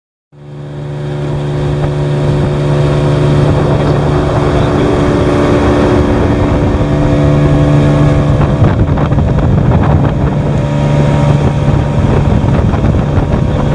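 Outboard motor pushing a small boat at speed, a steady engine drone with wind buffeting the microphone. The sound fades in from silence in the first second.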